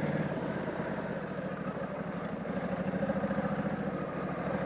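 2020 Honda Africa Twin's parallel-twin engine running at low speed, easing off slightly about a second in and picking up again about three seconds in.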